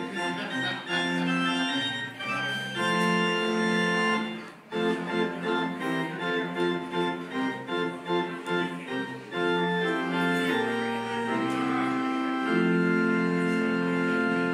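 Organ playing the closing postlude: held chords that change every second or so, with a brief break about four and a half seconds in.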